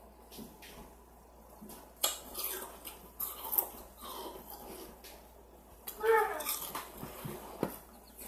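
Ice being crunched and chewed close to a microphone: a few sharp crunches about two and three and a half seconds in, then a short hummed vocal sound about six seconds in.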